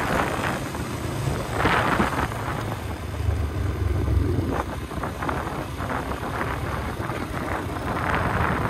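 Motorcycle engine running under way, its low note growing louder for a moment about three to four seconds in, with wind buffeting the microphone.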